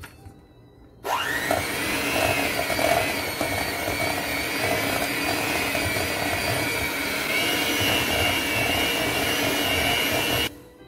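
Handheld electric mixer switched on about a second in, its motor spinning up and then running steadily as the beaters cream chunks of butter in a stainless steel bowl, then switched off shortly before the end.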